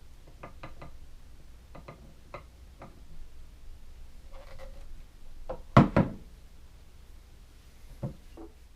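Light clicks and taps of kitchenware being handled, with a brief squeak about four and a half seconds in and a loud double knock about six seconds in.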